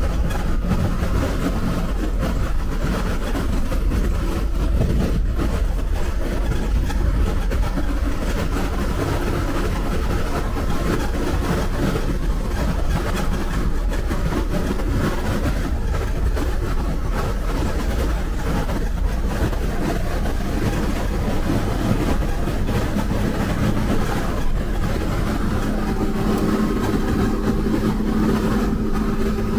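Bus on a highway: the engine runs under continuous road and tyre rumble. Near the end a steadier engine drone comes through.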